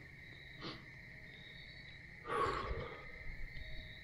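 Steady high trill of crickets, with a person's heavy breathy exhale, a sigh, about two and a half seconds in.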